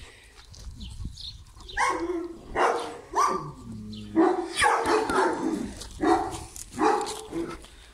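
A dog barking repeatedly in short, loud barks, beginning about two seconds in.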